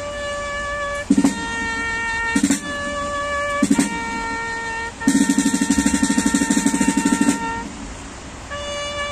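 Several vehicle horns honking at different pitches, with long held honks overlapping one another. A louder, buzzing low horn sounds in short blasts about one, two and a half and almost four seconds in, then holds for about two and a half seconds from about five seconds in.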